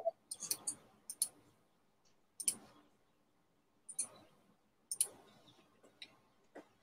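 Faint computer mouse clicks, single and in quick pairs, spaced irregularly across a few seconds.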